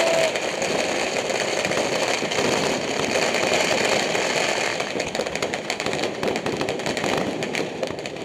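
Dense, unbroken crackle of many firecrackers and fireworks going off at once, a steady din of overlapping pops and bangs. Separate sharp cracks stand out more clearly in the second half.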